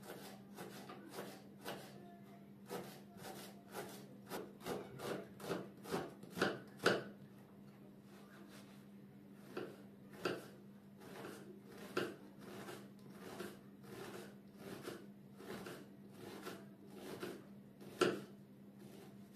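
Kitchen knife chopping fresh herbs on a wooden cutting board: a run of knocks that quicken and grow louder. After a short pause, the knife cuts through an onion on the board with steadier knocks about twice a second and one loud chop near the end.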